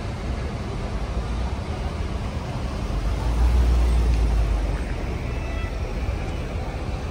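Street traffic noise with a low engine rumble that swells to its loudest about halfway through, as a vehicle passes, then eases back.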